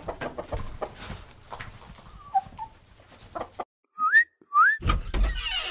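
Sound effects at a chicken coop: irregular soft knocks and rustling with a few faint chicken clucks, then two short rising whistles about four seconds in, followed by a loud burst of rustling noise near the end.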